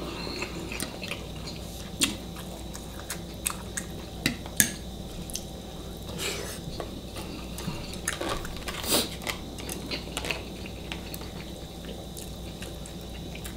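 Eating sounds: chewing and mouth smacks, with scattered light clicks and taps of chopsticks and utensils against bowls.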